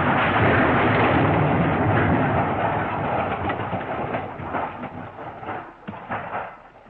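Dense, noisy crash sound effect. It holds loud for about two seconds, then fades out unevenly, ending in scattered clicks and rattles like debris settling.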